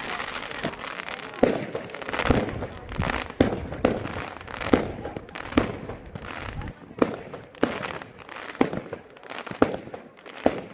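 Fireworks going off: about a dozen sharp bangs at uneven intervals, roughly one a second, with crackling in between.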